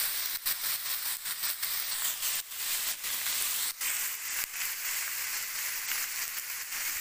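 Sliced onions and green chillies sizzling in hot oil in a kadai, a steady frying hiss, with the spatula clicking and scraping against the pan a dozen or so times.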